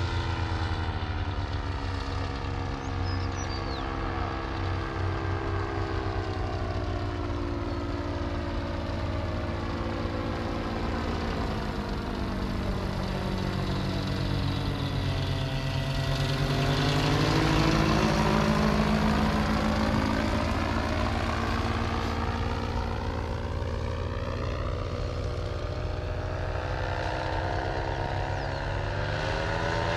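Paramotor engine and propeller droning steadily in flight. The drone swells to its loudest about eighteen seconds in as the craft passes overhead, with a sweeping, phasing change in tone as it goes by.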